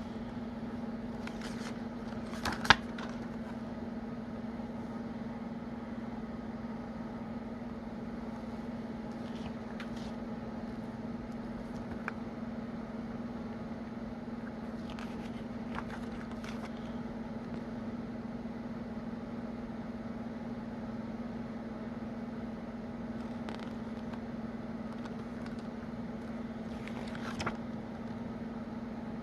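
A steady electrical hum with a few faint clicks and one sharper knock about three seconds in.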